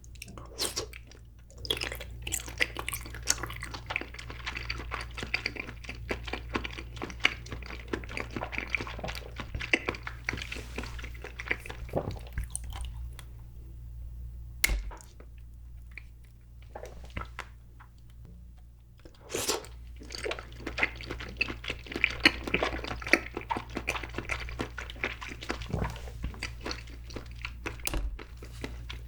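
Close-miked eating sounds of grape jelly being bitten, squished and chewed, dense wet clicks and smacks in two long spells with a short pause in between.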